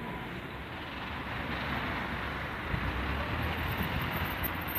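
A vehicle passing by: a steady rushing noise that grows louder over the first couple of seconds and then holds.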